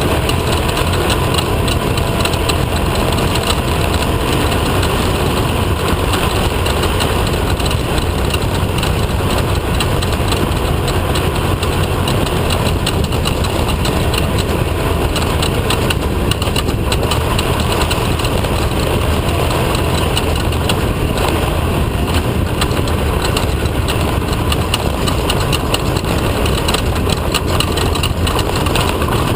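Off-road race vehicle's engine running steadily at speed, with a constant loud rumble and dense rattling from the vehicle over rough ground.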